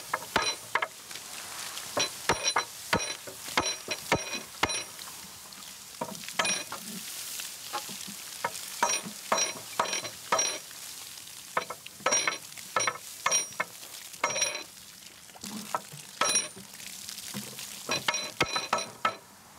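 Water hissing and sizzling as it is poured onto a red-hot iron wagon-wheel tyre, quenching it so it shrinks tight onto the wooden wheel. Repeated hammer blows ring on the iron, coming irregularly in quick runs.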